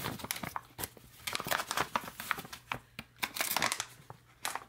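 Clear plastic drink pouch of mixed lemon-lime beverage crinkling and crackling as it is handled in the hands, in uneven runs of crackles that die down near the end.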